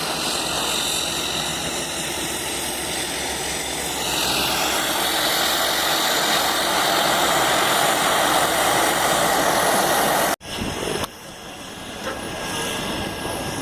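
Embraer EMB-120 Brasília's twin turboprop engines running loudly, a steady propeller noise with a high turbine whine that shifts in pitch about four seconds in. Near the end the sound cuts off suddenly and comes back quieter.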